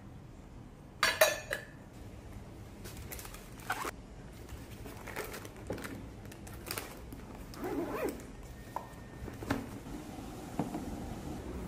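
Stainless-steel pot and utensils clinking and clattering, the loudest clatter about a second in, followed by scattered lighter knocks and the rasp of a backpack zipper.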